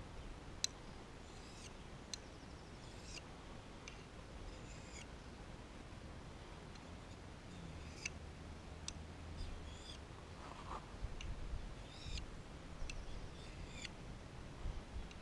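A Scandi-ground knife blade drawn in slow strokes along a small handheld sharpening stone to touch up the cutting edge, each stroke giving a faint short squeaky scrape, roughly one every second and a half, with a few sharp light clicks of steel meeting stone. Some low handling bumps come in the second half.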